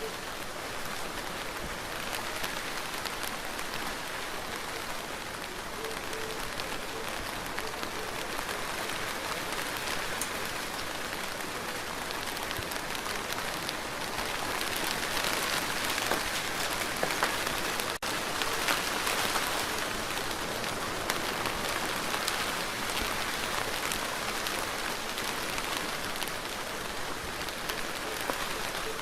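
Steady rain falling, with many separate drops striking; it swells a little heavier for a few seconds past the middle.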